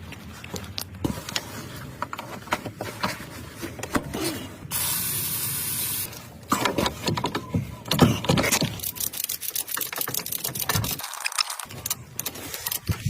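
Repeated clicks and knocks, with a steady hiss like a spray lasting about a second and a half near the middle.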